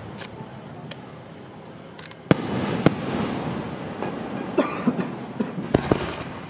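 Aerial firework shells bursting: a sharp bang about two seconds in and a second one just after, with a lingering echo, then a run of crackling pops near the end.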